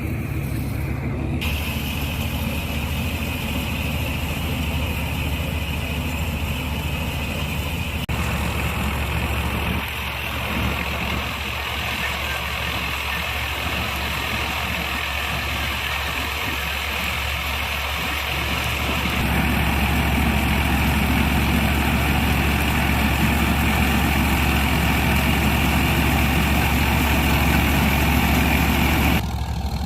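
Tractor-mounted combine harvester running while harvesting wheat: the tractor engine's steady drone under the whir and rattle of the cutting and threshing machinery. It grows louder about two-thirds of the way through and drops off suddenly near the end.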